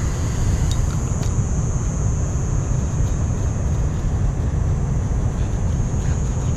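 Steady low rush of water pouring through a spillway, with a constant high-pitched drone above it and a couple of faint clicks near the start.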